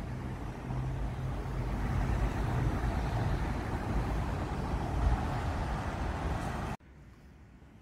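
Road traffic: a motor vehicle's engine and tyre noise with a low hum, growing louder over several seconds, then cutting off abruptly near the end.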